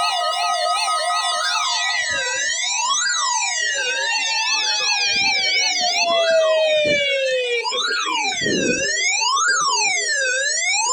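Electronic warning siren tones sounding as the alarm signal of a weekly warning-system test. Several tones are layered: a fast yelp and steady tones for about six seconds, then slower rising-and-falling wails, while one tone slides down in pitch and stops.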